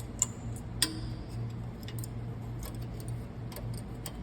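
Light metallic clicks of brake-pad anti-rattle clips being pushed into a caliper bracket, with one sharp click about a second in, over a steady low hum.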